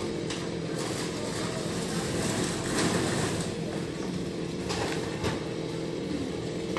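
Newwest 588 chainsaw's two-stroke engine running steadily at idle, with a few short knocks.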